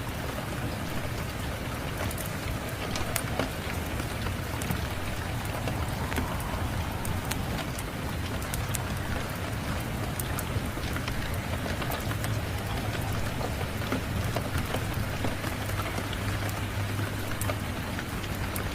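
Steady rain falling, mixed with the crackle and scattered pops of a wood fire, over a low steady rumble.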